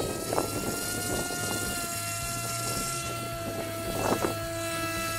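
Steady whine of a homemade plastic-bottle RC boat's 1000 KV brushless motor and propeller running at speed, with gusts of wind noise on the microphone.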